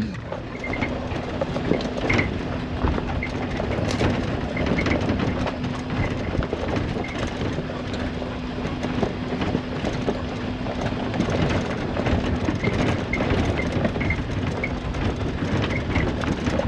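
Suzuki Jimny 4x4 running with a steady engine hum, heard from inside the cab, while the body and loose parts rattle and knock continuously as it drives over rough off-road ground.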